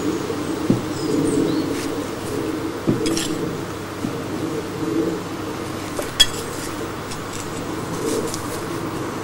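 Garden birdsong: a pigeon cooing in repeated low phrases, with small birds chirping faintly high above it. A few short knocks sound about a second in, near three seconds and about six seconds in.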